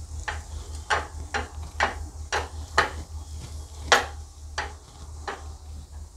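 Metal potato masher pressing boiled potatoes in a kadhai and knocking on the pan's bottom: about ten sharp taps, roughly two a second, the loudest about four seconds in, stopping shortly before the end.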